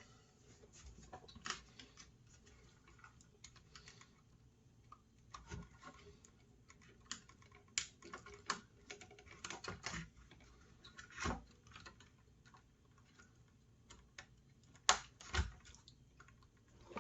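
Faint, irregular clicks and taps of small plastic and metal router parts being handled during disassembly, with a few sharper knocks.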